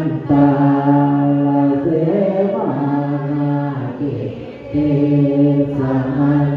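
Theravada Buddhist monks chanting Pali verses in unison in low voices, holding long notes on a nearly level pitch. The chant breaks briefly about two seconds in and again around four and a half seconds, where breath is taken.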